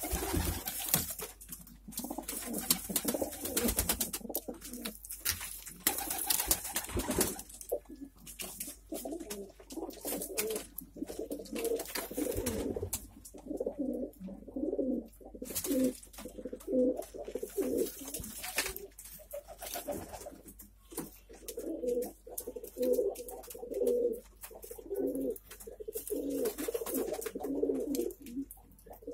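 Domestic pigeons cooing, a long run of low repeated coos that gets going about a third of the way in. Rustling and clicks come in the first several seconds.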